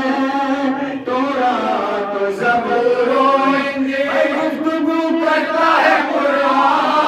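Men chanting an unaccompanied Shia devotional poem in Urdu through a microphone: a lead voice holding long sung lines, with other men singing along.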